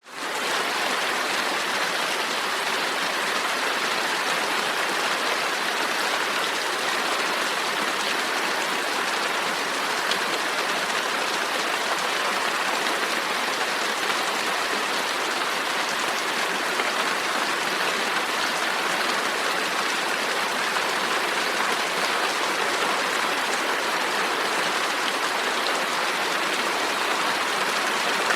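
Steady rain falling, an even hiss with no single drops standing out. It fades in quickly from silence at the very start.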